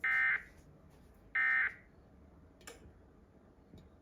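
Emergency Alert System end-of-message data tones: the last two of three short, identical, buzzy digital bursts about 1.4 s apart, marking the end of the alert. A single sharp click follows about 2.7 s in.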